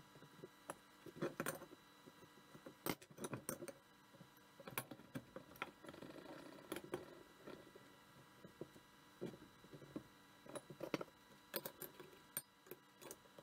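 Steel tubing and hand tools being handled on a wooden workbench: irregular light metal clinks and knocks, in small clusters.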